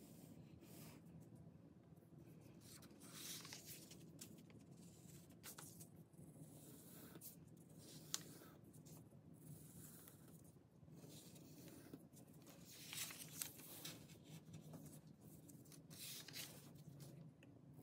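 Faint scratching of a pencil on paper in short, irregular strokes, over a low steady hum, with one sharp click about eight seconds in.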